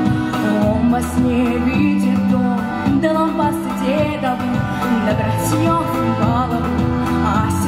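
A female solo voice singing a Russian song into a microphone over a pre-recorded instrumental backing track, amplified through the stage speakers.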